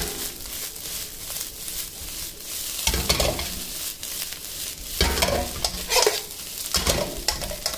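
Fried rice sizzling in an iron wok while a metal ladle stirs and scrapes it, with several louder scrapes and knocks of the ladle against the wok.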